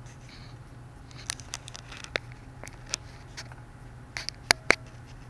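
Scattered light clicks and taps of hands handling hard plastic, with two sharp clicks close together near the end, over a steady low hum.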